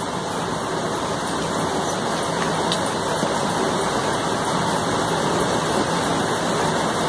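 Steady rushing background noise with no distinct strikes or clicks.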